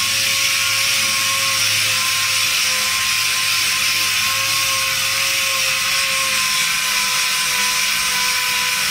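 Pneumatic random orbital sander running steadily at medium speed, a constant hiss with a steady whine, its 500-grit soft pad sanding a painted plastic car molding.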